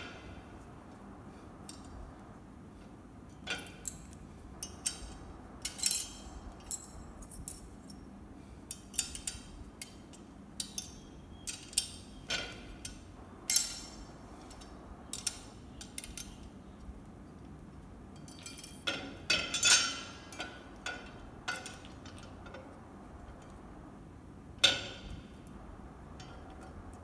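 Irregular metallic clinks and knocks from the white steel tube legs, screws and Allen key of an IKEA Marius stool being handled and set against one another and the tiled floor during assembly, with a few sharper, louder knocks among the lighter taps.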